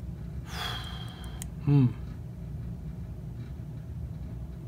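A man breathes out audibly, then gives a short, low 'hmm' that falls in pitch, over a steady low background hum.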